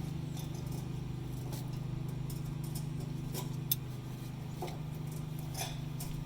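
A few light clicks and clinks as fuel pump parts are handled and pressed into place, with a steady low hum underneath.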